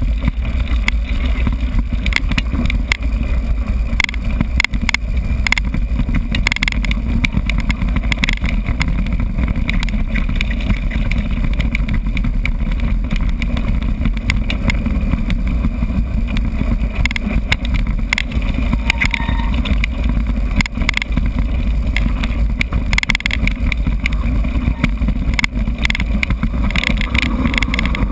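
Wind buffeting a GoPro's microphone as a mountain bike rides a rough dirt track, a steady loud rumble with frequent clicks and rattles from the bike jolting over bumps.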